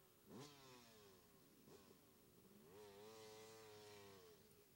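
Distant dirt bike engine, faint: a sharp throttle blip a third of a second in, a shorter blip near 1.7 s, then held at a steady higher rev for about a second and a half before dropping back.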